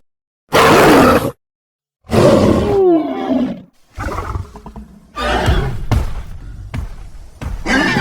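Mantisaur creature sound effects: a short loud screech, a pause, then a long roar that falls in pitch, followed by a string of growling roars.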